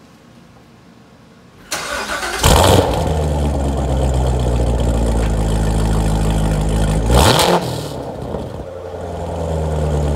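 2017 Corvette Stingray's 6.2-litre LT1 V8 starting through its Corsa double-helix X-pipe and NPP exhaust. The starter cranks briefly about two seconds in, the engine catches with a loud flare and then settles into a steady fast idle. A short rev comes about seven seconds in, then the idle dips and slowly rises again near the end.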